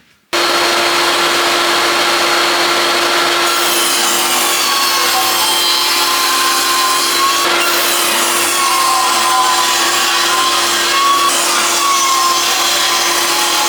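Table saw ripping Scandinavian redwood boards lengthwise into strips: a steady motor-and-blade noise that starts suddenly, with the blade's pitch wavering slightly as it works through the wood.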